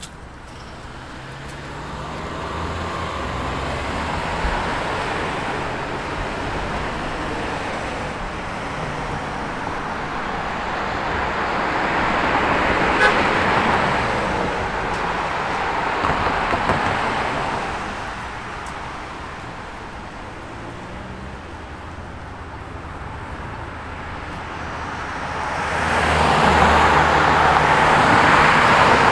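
Road traffic: cars driving past on a street, their tyre and engine noise swelling as each goes by, with two louder passes, one around the middle and one near the end.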